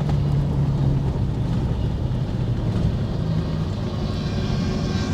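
A vehicle engine running steadily, a continuous low hum with no breaks.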